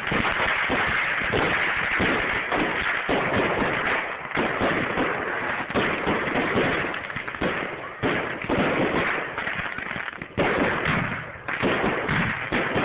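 Fireworks going off: a dense, unbroken run of rapid pops and crackles. It thins briefly and then comes back sharply twice near the end.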